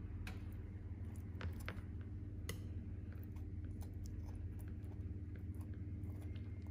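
Faint clicks and soft scrapes of a table knife spreading soft butter over a boiled whole cauliflower and scooping more butter from a plate, over a steady low hum.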